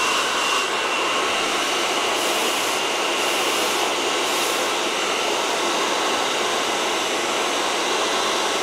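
Hand-held hair dryer blowing steadily: a loud even rush of air with a thin high whine over it.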